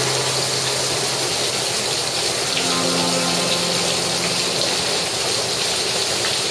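Heavy rain pouring onto a flooded patio: a dense, steady hiss of drops splashing into standing water, with a low hum underneath.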